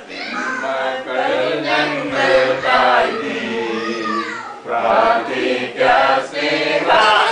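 Voices singing a song, with drawn-out notes that rise and fall.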